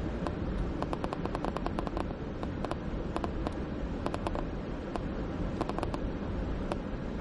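Road and engine noise inside a moving car's cabin: a steady low rumble, with scattered sharp clicks that come in quick clusters, thickest about a second in and again between three and four and a half seconds in.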